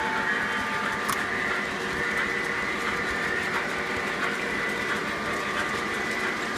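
Three-rail O-gauge model train running on its track layout: a steady whir of motor and wheels, with one sharp click about a second in.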